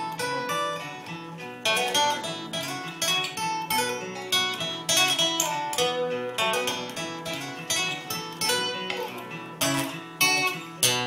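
Acoustic guitar playing an instrumental break in a folk song, picked notes and strummed chords with no singing.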